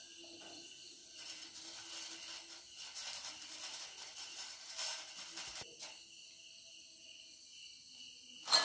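Faint sizzling and crackling of hot frying oil as fried potato sticks drain in a wire skimmer over the pan. Near the end comes a short, sharp clatter as the fries are tipped from the skimmer into a ceramic bowl.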